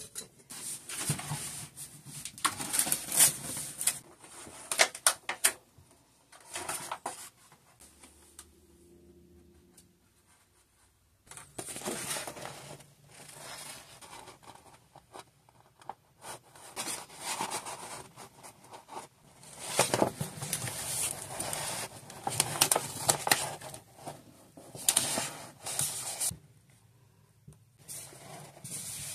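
Wallpaper panels being handled and pressed onto a wall by hand: irregular rustling, crinkling and scraping of the paper, with a quieter pause of a few seconds partway through.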